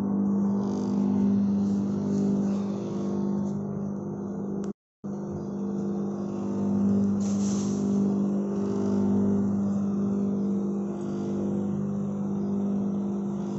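STC Swaroop domestic flour mill (aata chakki) running steadily with a low electric-motor hum after the grain has all been ground, waiting for its automatic shut-off. The sound cuts out completely for a moment about five seconds in.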